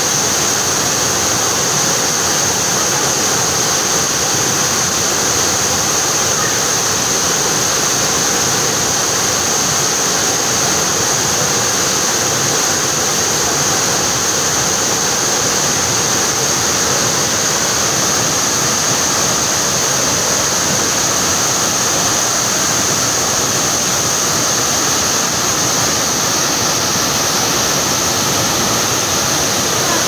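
Waterfall pouring down a rock face into a pool: a loud, steady rush of falling and splashing water.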